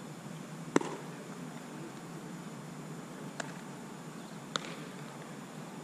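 A sharp pop from a pitched baseball about a second in, then two fainter clicks later on.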